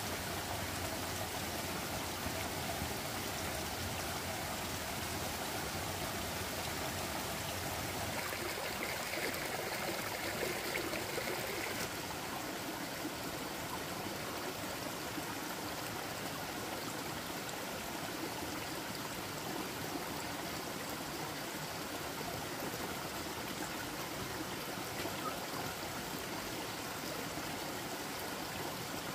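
Running water: a steady, even rushing.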